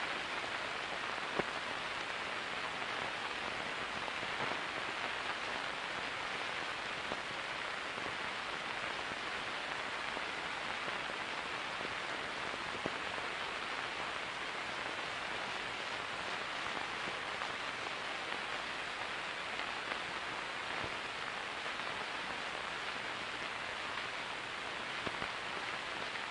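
Steady hiss with a few faint clicks: the noise floor of an old film soundtrack, with no speech or music over it.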